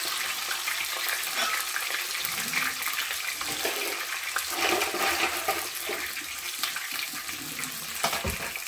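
Oil sizzling and crackling steadily around two whole red snapper frying in a frying pan.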